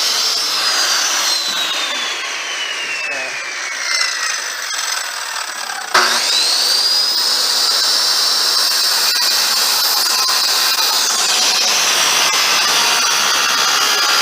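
Electric power tool motor: a high whine that winds down steadily in pitch as the tool coasts to a stop over about five seconds, then the motor is triggered again about six seconds in, spins up quickly and runs steadily at full speed.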